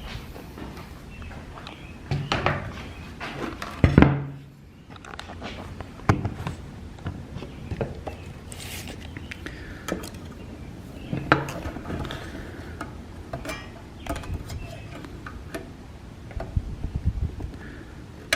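Tools and wood being handled on a workbench: scattered knocks, clicks and clinks, with the loudest knock about four seconds in and a quick run of rattling knocks near the end.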